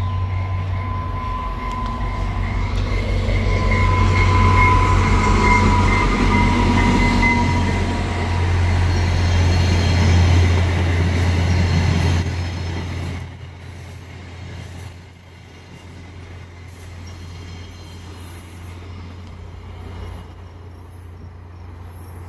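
A VIA Rail diesel-hauled passenger train passing close by at speed: a heavy low rumble of locomotive and wheels on rail, loudest in the middle, with a steady high whine over the first several seconds. The rumble drops away suddenly about thirteen seconds in as the train moves off, leaving a fainter trailing rumble.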